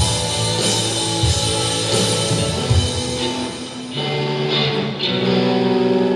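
Live student rock band playing, with electric guitars and a drum kit. About four seconds in, the drum hits thin out and the guitars ring on in long held chords.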